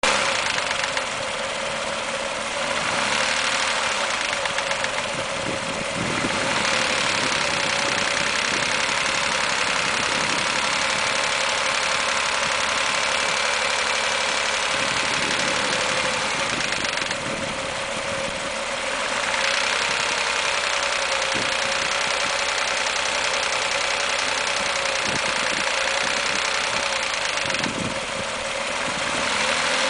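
Mazda 6 engine running at low revs with a knock/rattle that shows between 1000 and 1500 rpm, with aftermarket headers fitted and the catalytic converters removed. The level shifts a few times as the revs change.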